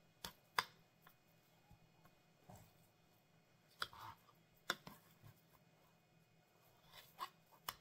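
Kitchen knife tapping on a cutting board while beef steak is diced into bite-sized pieces: scattered sharp clicks, a couple close together near the start, a few single ones in the middle and a small cluster near the end.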